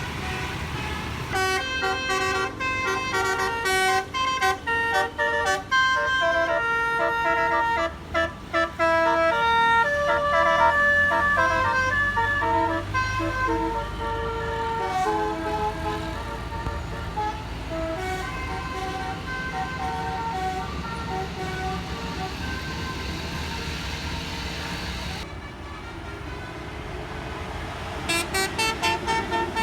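Bus 'telolet basuri' musical air horn playing a tune of changing pitched notes, quick stabs at first and then longer held notes. It pauses briefly near the end, then starts another run of quick notes.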